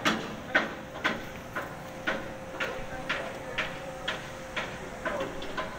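Evenly spaced knocks, about two a second, over a faint steady hum.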